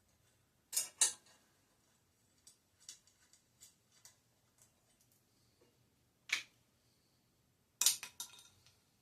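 Sharp clinks and clicks of small metal parts or tools being handled and set down: a double click about a second in, another near the middle, and a cluster of clinks near the end, with lighter ticks between.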